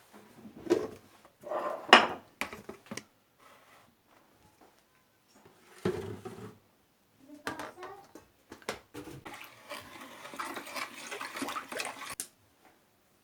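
Household handling sounds: a few knocks and clatters of dishes, then about three seconds of rushing water that stops abruptly.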